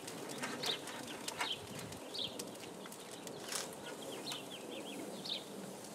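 Birds chirping in short, falling calls, with a few sharp clicks of metal tongs against the grill grate as fish are laid on.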